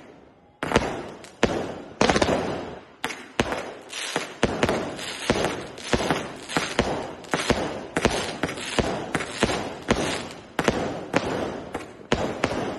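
Fireworks going off in a dense, irregular barrage: sharp bangs, often two or three a second, each trailing off in an echoing rumble. A short lull just after the start ends with a bang about half a second in.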